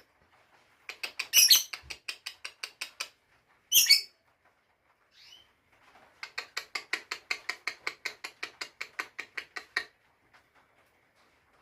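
Lovebird calling in two long trains of short, sharp, rapid chirps, about seven a second, with one louder screech between them.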